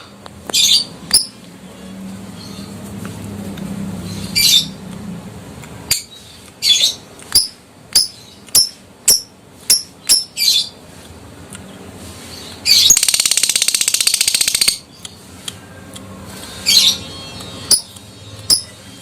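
Adult lovebird calling: sharp, high single chirps and clicks come one after another, then a fast, rattling chatter lasting about two seconds past the middle (the 'ngekek' trill), followed by a few more sharp chirps.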